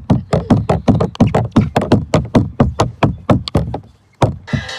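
Rapid, fairly even knocking, about six sharp strikes a second, stopping briefly a little after 4 seconds in.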